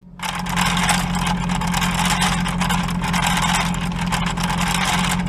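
Steady engine-like mechanical rumble: a low hum under a loud, even hiss, fading in quickly at the start and then holding steady.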